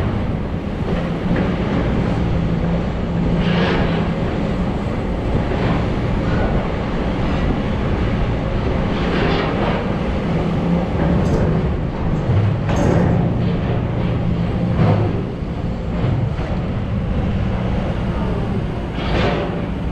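Heavy diesel construction machinery working, its engine note rising and falling under load, with scrapes and knocks every few seconds.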